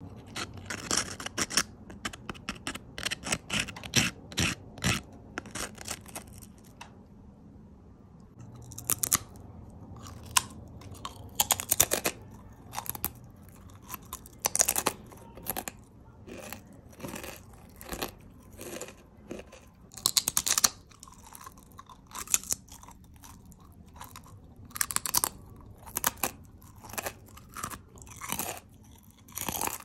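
Ridged potato chips bitten and chewed close to the microphone: a quick run of crunches at first, a short lull, then loud single crunching bites every few seconds with softer chewing in between.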